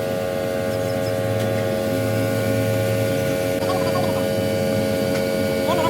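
Steady machine hum made of several held tones. A few brief chirps sound over it, one in the middle and one near the end.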